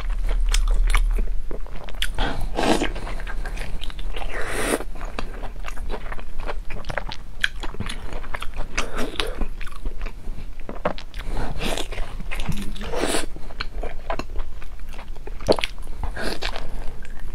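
Close-miked eating sounds: biting into and chewing food, with irregular wet smacks, crunches and small mouth clicks coming several times a second.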